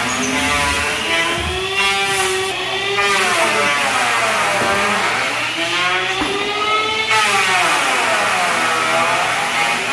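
A small motor running with a strong whine, its pitch repeatedly sagging and rising again as if taking and releasing load.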